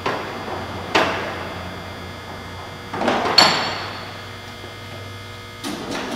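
Steady electric hum of a horizontal boring mill under power, with sharp metallic clunks of its controls being worked about one, three and six seconds in, one clunk ringing briefly.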